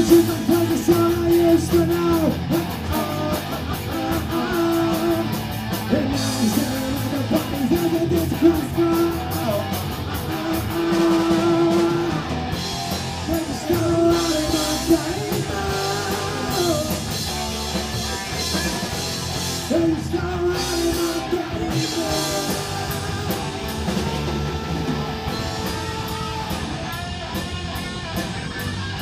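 Rock band playing live: electric guitars and a drum kit, with a lead vocal sung into a microphone.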